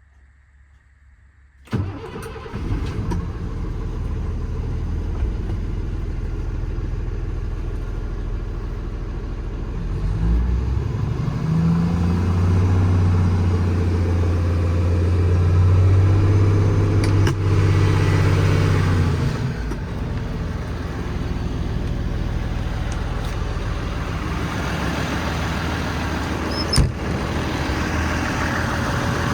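Cummins 8.3 ISC six-cylinder diesel in a Peterbilt 335 starting about two seconds in and settling into a steady idle. Midway the engine note rises and holds louder for several seconds, then drops back to idle; a single sharp click near the end.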